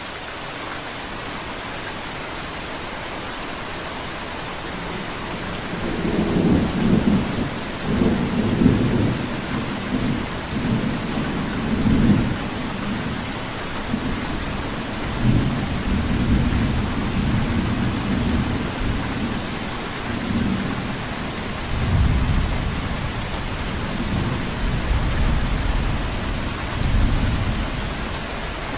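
Steady rain hiss. From about six seconds in, irregular low rumbles come and go beneath it.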